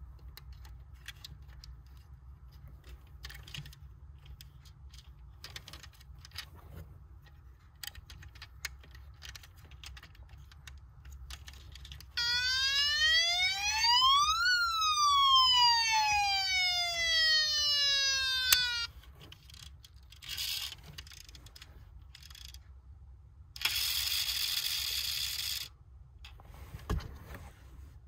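Die-cast toy Hummer's battery sound module playing a siren: one wail that rises for about two seconds, falls for about four, then cuts off. Before it come light clicks of the toy being handled, and after it two short hissing bursts.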